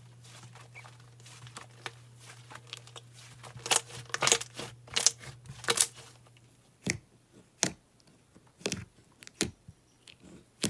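Hands playing with slime: irregular crackling, squishing pops, with a run of louder pops about four to six seconds in, then single snaps about a second apart.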